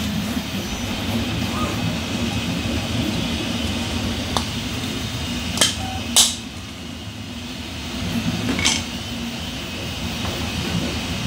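Hard 3D-printed plastic model parts being handled and fitted together, with a few sharp clicks and taps, the loudest about six seconds in, over a steady low hum.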